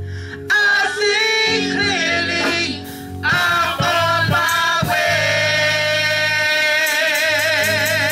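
A man singing a gospel line with heavy vibrato into a microphone, over held accompaniment chords that change a few times. Near the end a tambourine starts shaking in a steady rhythm.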